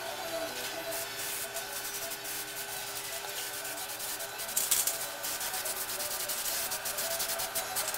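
Rapid, irregular scratching and rubbing noise from the camera's microphone brushing against hair and fabric as it is handled close up, over a few faint steady tones.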